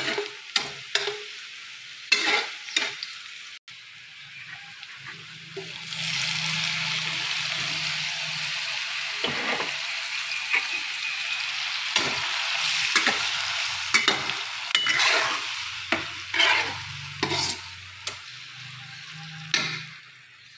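Spatula scraping and tapping against a wok as minced garlic fries in oil. About six seconds in, a louder, steady sizzle starts as diced tomatoes fry, with the spatula stirring and scraping on through it.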